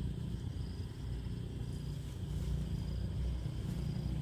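Low rumble of wind buffeting the microphone, with a faint short high trill repeating about once a second.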